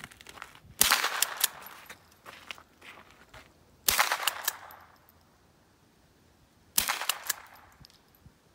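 Three shots from a Remington Model 12A pump-action .22 rifle, about three seconds apart. Each is a sharp crack followed by a short rattle of clicks.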